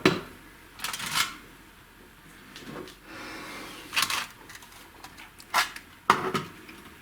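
About half a dozen scattered metal clicks and clinks as steel engine parts and a measuring gauge are handled on a workbench, while connecting rods are being checked for size.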